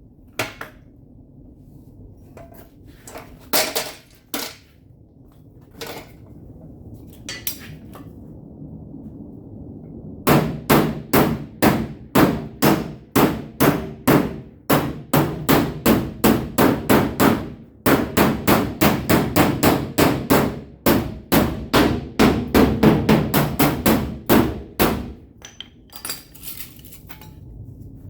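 Hammer striking the sheet-metal quarter panel of a Dodge Ram pickup, tapping the damaged area back straight. A few separate taps at first, then about ten seconds in a long run of rapid blows, about three a second, with a brief pause partway, tailing off into a few lighter taps near the end.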